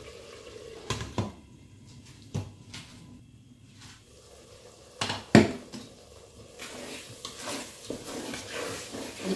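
Glass pot lid knocking and clinking on a stainless-steel pot, several sharp knocks with the loudest about five seconds in. Then, about a second and a half later, a wooden spoon stirring and scraping thick, caked egusi in the pot, with a soft hiss from the hot pot.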